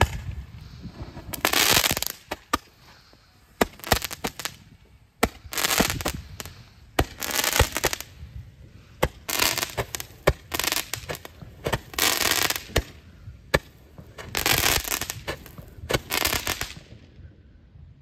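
Hand-held Roman candle firing a series of about ten shots, each a short loud hiss, with sharp firework pops in between; the firing stops about a second before the end.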